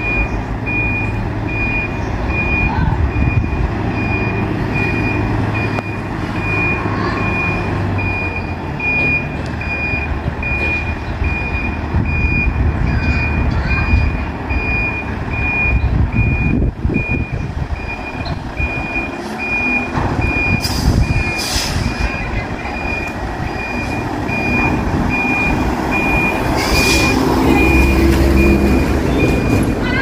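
Semi-trailer truck reversing: its back-up alarm beeps at one high pitch, repeating evenly, over the low running of the diesel engine. A few short hisses come in the second half, typical of the truck's air brakes.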